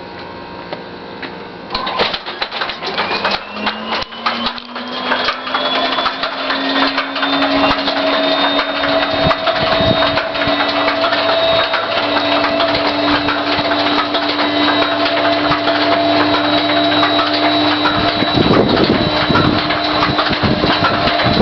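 An engine start attempt: after a burst of crackling clicks about two seconds in, a whine rises in pitch over several seconds and levels off into a steady running hum with a high whine above it. A low rumble swells up briefly near the end.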